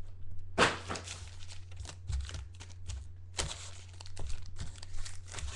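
Foil-wrapped trading card packs crinkling and rustling in a run of short bursts as they are handled and stacked on a table.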